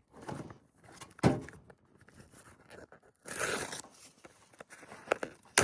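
Cardboard firework cake boxes being handled: a thump about a second in, a scraping rustle around three seconds in, and a few small knocks near the end.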